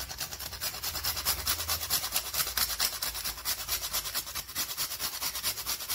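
A whole nutmeg being grated on a small metal hand grater: a rapid, even rasping scrape at about five strokes a second.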